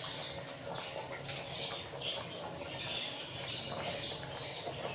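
Chickpea stock at a rolling boil in a metal pot: dense, irregular bubbling and popping.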